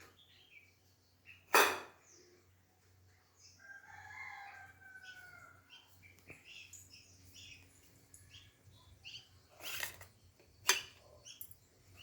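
Small birds chirping with many short, high calls, and a rooster crowing once for about two seconds, starting about three and a half seconds in. Three sharp knocks cut across the birdsong; the loudest comes about a second and a half in.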